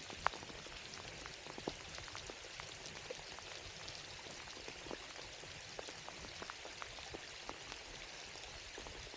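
Steady rain falling, with an even hiss and scattered sharp ticks of individual drops hitting close by.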